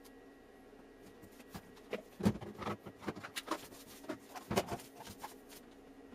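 A run of irregular light clicks and taps, with two heavier dull knocks about two and four and a half seconds in, over a faint steady hum: handling noise in a kitchen.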